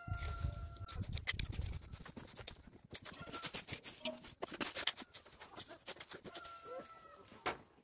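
Dry straw and grass stalks rustling and crackling as they are gathered up by hand from the ground. A bird gives a short held call near the start and again near the end.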